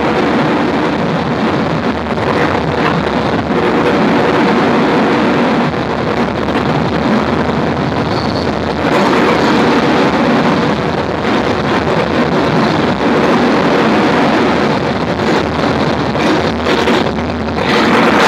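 Loud, distorted noise jam from amplified keyboards and a microphone: a dense, unbroken wall of noise with low droning tones beneath it.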